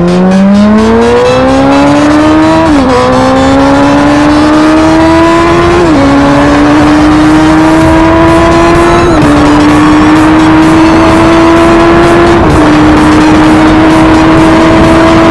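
Sport motorcycle engine at full throttle, accelerating hard through four quick upshifts: the pitch climbs in each gear and dips briefly at every shift, and each gear pulls longer and more slowly than the last as speed builds.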